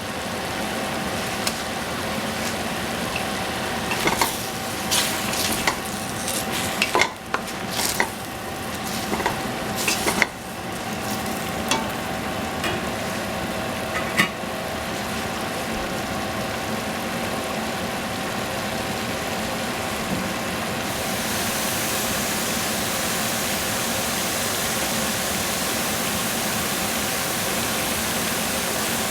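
Food sizzling as it is stir-fried in a hot pan, with a utensil clacking and scraping against the pan during the first half. Then the steady sizzle alone, which grows louder and brighter about three quarters of the way in.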